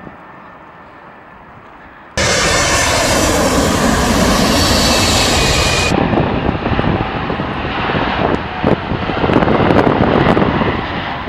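Loud jet engine noise of a Boeing 747 freighter's four engines as it flies low on approach, cutting in abruptly about two seconds in over a quieter rumble.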